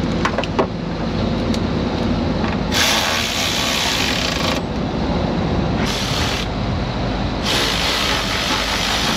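Steady motor drone of the A/C service machine's vacuum pump evacuating the air-conditioning system. A few light metal clicks near the start as a hose clamp is fitted, and three stretches of loud hiss in the second half.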